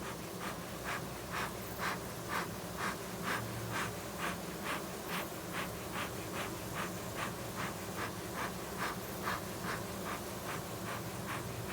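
Honeybee colony buzzing steadily, still loud because its queen has only just been returned and not all the bees know she is back yet. Over the buzz, a short scratchy sound repeats regularly about three times a second.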